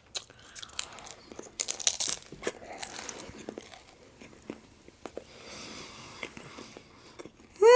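Close-up eating sounds: biting into crunchy food, then chewing, with a run of sharp crackly crunches loudest about two seconds in.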